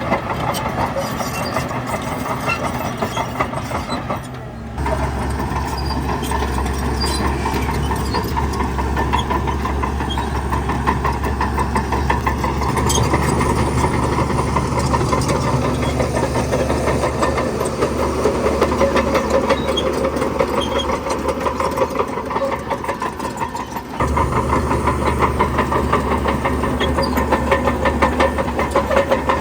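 Heavy diesel engine of earthmoving machinery running steadily. A deep low drone cuts in abruptly about five seconds in, and there is a brief drop shortly before the end.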